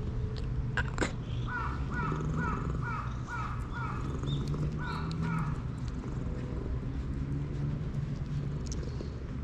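A crow cawing in a quick series of about nine caws, roughly two a second, with a short break partway through.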